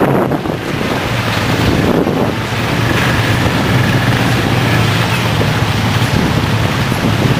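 ATV engines running as the quads churn through a shallow rocky creek, with water and mud splashing under the tyres. Wind buffets the microphone.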